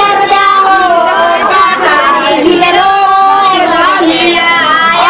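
A high-pitched woman's voice singing a melody, holding long notes with wavering slides between them.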